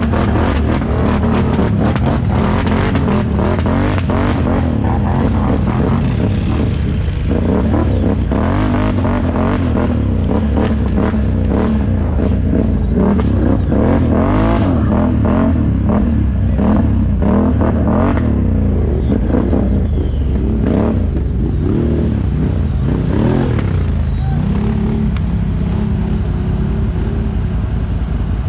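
ATV engine, likely a Can-Am, revving up and down again and again while riding a rough trail, with rattling and clatter from the machine over the bumps. The revs settle to a steadier tone near the end.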